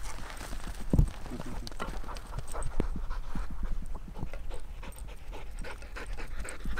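Dog panting, with a single low thump about a second in and small scattered clicks.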